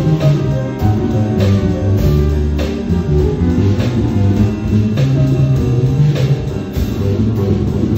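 Grand piano played live: a busy stream of struck notes over held low bass notes.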